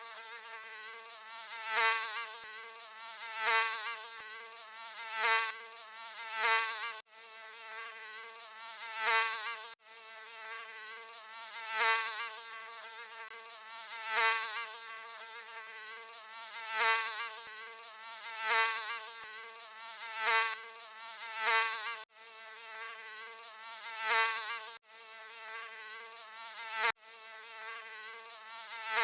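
Mosquito buzzing, a thin whine that swells loud and fades away again about every two seconds, as if flying close past the ear. It has a few sudden brief dropouts where the looped recording is spliced.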